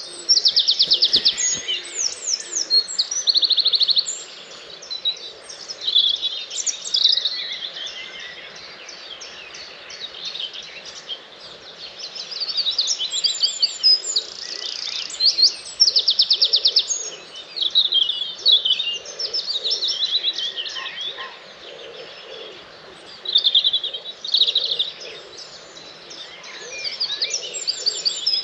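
Dawn chorus of many songbirds singing at once: overlapping whistles, chirps and fast trills, with loud rapid trilled phrases standing out now and then.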